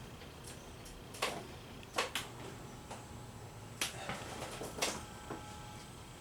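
56-inch Canarm industrial ceiling fan spinning up on its low setting with a faint steady hum, under about six sharp, irregular clicks and knocks.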